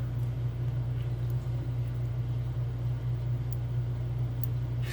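Steady low hum with a few faint, light clicks scattered through it.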